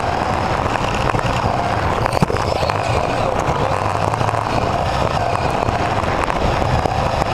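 Onboard sound of a mini RC racing car driving flat out: its electric motor and gear drive whine steadily, rising and falling a little with throttle, over a constant rush of tyre and chassis noise with small rattles and one sharper knock about two seconds in.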